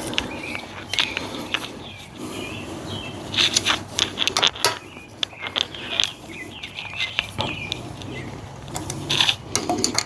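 Irregular metallic clicks and scrapes of hand tools and bolts being handled while the frame slider hardware is fitted.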